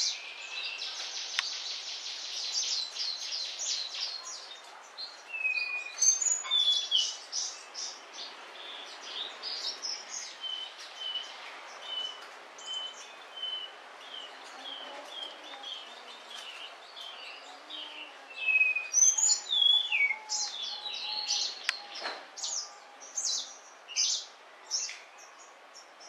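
Several munias chirping: quick high chirps and short trills, a run of evenly spaced single notes through the middle, and louder, busier chirping near the end.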